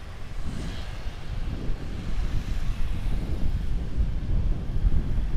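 Wind rumbling on the microphone of a moving vehicle, with road and engine noise beneath, growing louder as it picks up speed.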